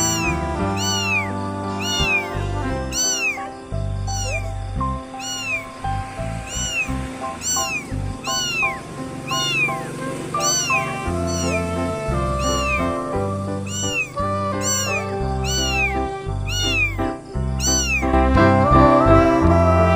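A kitten mewing over and over, high-pitched rising-and-falling mews about once a second, which stop near the end. Background music plays throughout.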